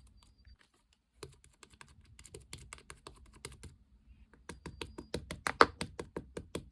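Slime being pressed, squeezed and poked by hand, giving rapid crisp clicks and pops. After a short pause near the start, the clicking picks up and grows denser and louder in the second half.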